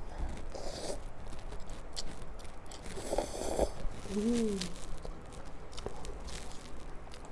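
Close-up eating sounds of a person eating Pop Mie cup noodles in soup: chewing and biting with scattered small clicks, a short noisy burst about three seconds in, and a brief rising-and-falling hum just after four seconds.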